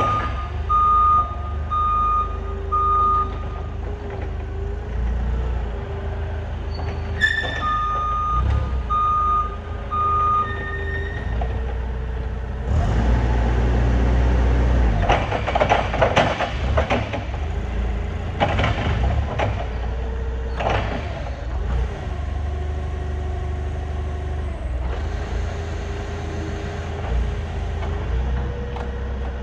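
Forklift running with its reversing alarm beeping a little faster than once a second, in two spells in the first third. The machine then runs louder and rougher for several seconds in the middle before settling back to a steady run.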